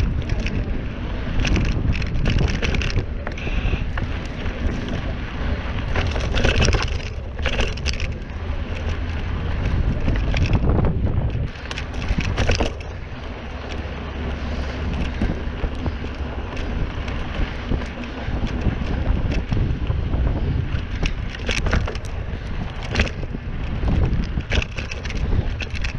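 Mountain bike being ridden over a rough trail: wind buffets the microphone in a steady low rumble, and the bike rattles and clatters over bumps in many quick knocks.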